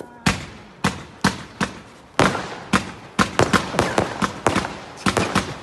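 Fireworks going off in a rapid series of about twenty sharp bangs, spaced about half a second apart at first and coming faster and closer together from about three seconds in.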